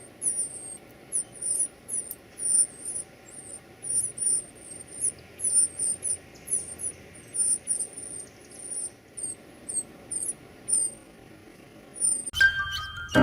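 Nestling birds giving rapid, very high-pitched begging chirps, a few a second, which stop shortly before music begins near the end.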